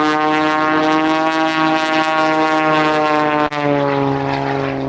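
Propeller aircraft engine droning as it flies past, its pitch sliding slowly lower. There is a brief break about three and a half seconds in.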